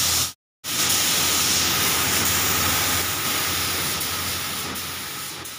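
Compressed-air paint spray gun hissing steadily as it sprays paint, over a low hum. It cuts out for a moment near the start, then fades gradually over the last couple of seconds.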